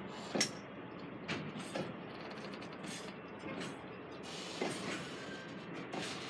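Koki 106 container flat wagons of a freight train rolling slowly past with a steady rumble of wheels on rail. Irregular knocks and creaks come from the running gear, the sharpest about half a second in, and a faint thin squeal comes near the end.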